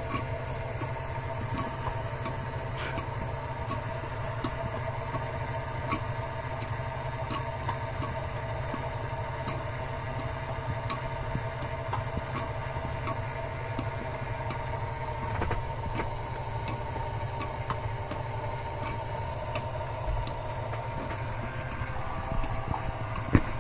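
Homemade single-piston oil pump on a mini lathe running steadily, giving a constant mechanical hum with faint, scattered ticks. A few louder knocks come near the end.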